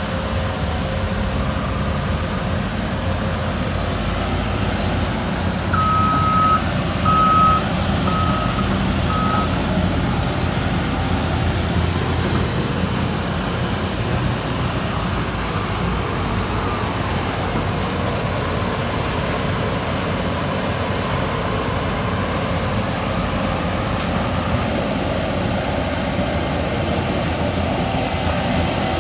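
Heavy diesel engines of excavators and a ten-wheel dump truck running steadily under work. About six seconds in, a reversing alarm beeps four times, the first beep longer than the rest.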